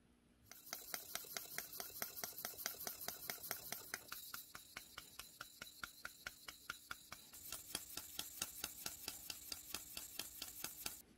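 Steel deba knife blade being hand-sanded with an abrasive block: rapid, even back-and-forth scratching strokes, several a second, starting about half a second in and stopping just before the end. It is the scratch-removal stage of refinishing the blade, worked up to a finer grit.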